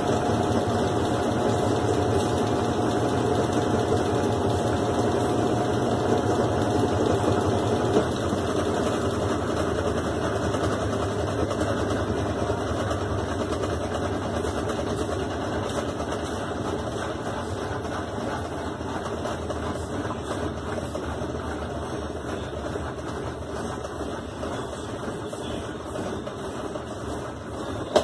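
GE Super Capacity top-load washing machine in its final spin, the tub spinning continuously after the stop-start ramp-up, with a steady motor and drum hum. A faint steady whine fades out about eight seconds in, and the running sound slowly gets quieter.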